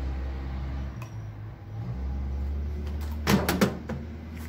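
Microwave oven door being opened: two sharp clacks of the latch releasing and the door swinging open, a little over three seconds in, over a low steady hum.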